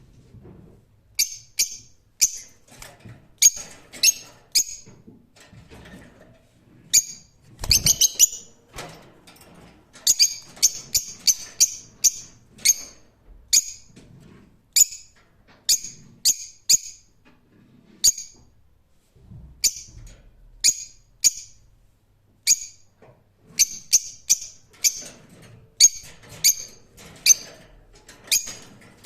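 Lovebirds giving short, sharp, high-pitched chirps, some single and some in quick runs of several, with irregular gaps between them.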